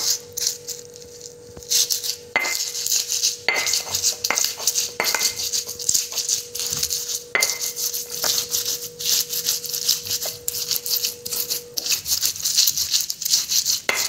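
Stone pestle grinding and crushing chillies, shallots and salt on a flat stone mortar (Indonesian cobek and ulekan). Repeated gritty scraping with sharp knocks of stone on stone, after a short pause near the start.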